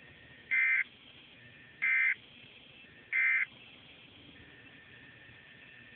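Weather alert radio sounding three short digital data bursts, about a second and a half apart: the SAME end-of-message code that closes the weekly test broadcast.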